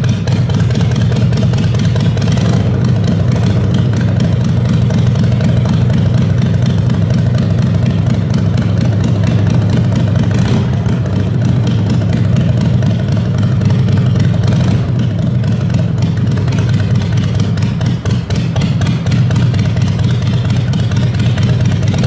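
Harley-Davidson Shovelhead air-cooled V-twin engine running at a steady low speed, its low-pitched firing pulses even throughout.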